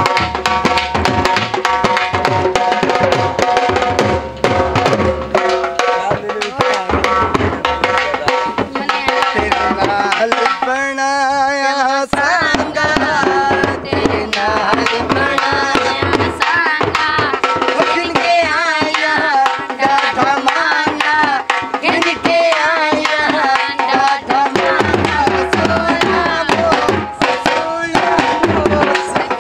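Dhol drums beaten with sticks in a fast, driving rhythm, with a wavering melody line carried over the drumming.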